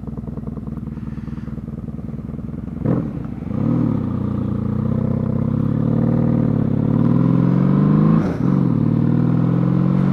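Honda Magna V4 motorcycle engine running at low revs, then accelerating: the pitch climbs for several seconds, drops at an upshift about eight seconds in, and climbs again.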